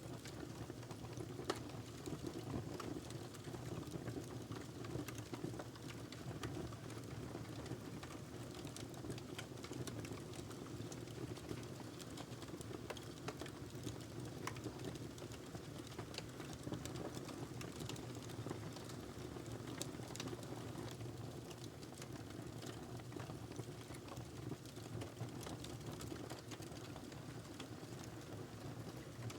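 Log fire burning in a fireplace: a steady low rush of flames with frequent small crackles and pops scattered throughout.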